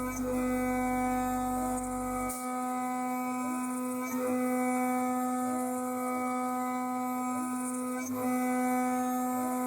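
CNC milling machine spindle whining steadily on one high tone while the cutter mills out a flange, with a hiss of cooling air on the cut. A low hum underneath cuts off about two seconds in.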